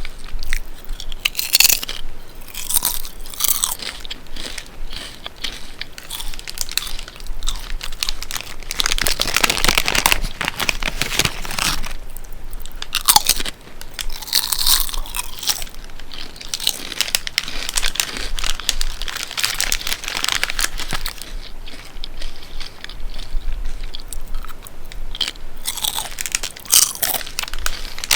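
Close-up crunching of potato chips being bitten and chewed, in repeated bouts of crisp crackling, loudest in a few clusters.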